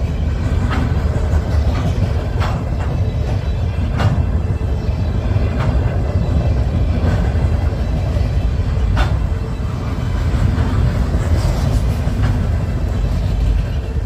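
CSX freight train rolling past: a steady low rumble with scattered sharp clicks and knocks from the cars.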